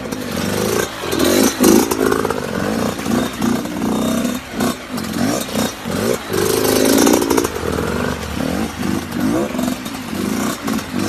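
Motorcycle engine revving over and over, its pitch rising and falling repeatedly.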